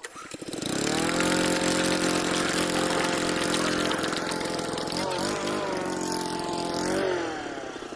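Honda lawn mower's four-stroke engine starting up and running at steady speed. Its pitch wavers briefly mid-way, then it rises for a moment and drops to a lower, quieter idle near the end.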